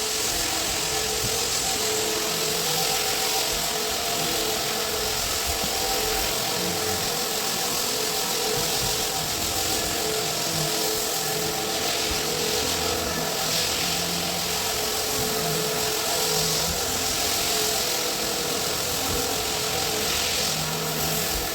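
A motor-driven machine running steadily, a constant hiss over a steady hum that does not change throughout.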